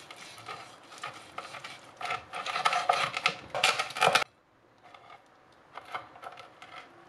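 Cleaver cutting down through roast pork belly with puffed, crisp crackling skin on a wooden cutting board: a dense crunching crackle that grows louder and stops suddenly about four seconds in, the sign of very crisp skin. A few faint crackles follow.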